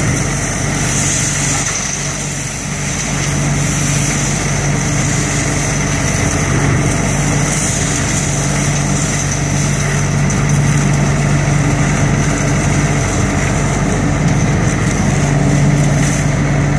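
ODB 650 trailer-mounted leaf vacuum running steadily at working speed, its engine-driven fan pulling raked leaves up the wide intake hose: a constant low hum under a rushing hiss.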